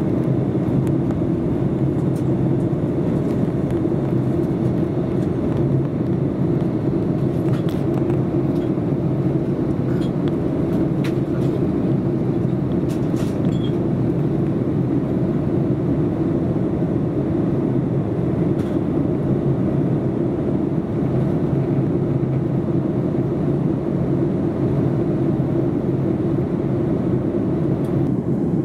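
Steady airliner cabin noise: a continuous rumble of jet engines and airflow heard from inside the plane, with a few faint ticks.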